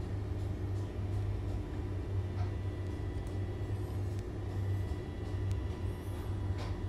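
A steady low hum with a few faint, scattered clicks and light metal taps as a steel adjustable wrench is handled.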